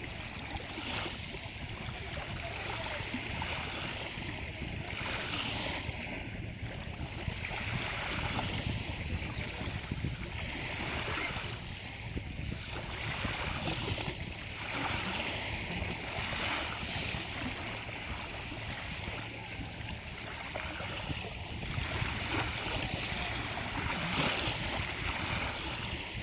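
Stream water running, a steady rushing and babbling that swells and eases every second or two.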